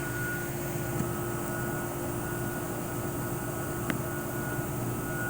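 Steady machine hum with several constant tones, like a shop's running equipment or ventilation, and two faint light clicks about a second in and near four seconds.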